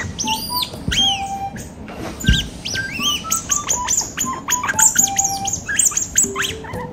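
Asian small-clawed otters chirping: a rapid, continuous run of high, squeaky calls that rise and fall in pitch.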